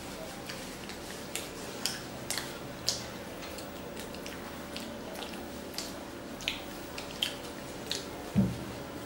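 People chewing and biting pizza: irregular small wet mouth clicks and smacks, a few a second, over a faint steady hum. About eight seconds in there is a louder low thump.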